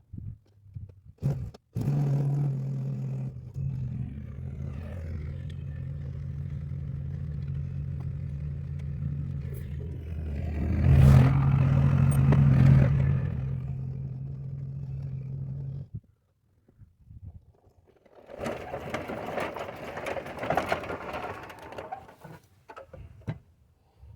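An electric motor runs steadily for about fourteen seconds, getting louder for a couple of seconds near the middle, then cuts off suddenly. A few seconds later comes a stretch of clattering and rattling.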